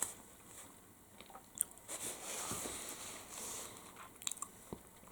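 Chewing a mouthful of chocolate with popping candy in it, with scattered faint sharp clicks and crackles from the candy popping.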